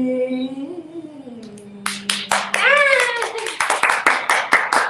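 The last sung note of a duet, held and then sliding down in pitch, followed from about two seconds in by two people clapping their hands in a quick, continuing patter, with a short voiced exclamation over the first claps.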